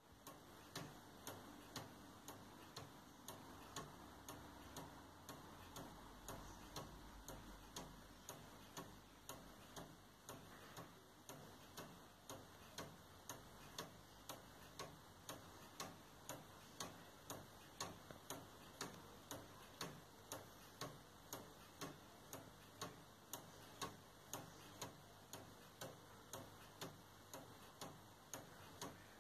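Spring-wound laser-cut wooden pendulum clock (Robotime kit) ticking evenly, its wooden escapement giving sharp clicks about three every two seconds. The clock is running smoothly after fine adjustment of its gears and axles.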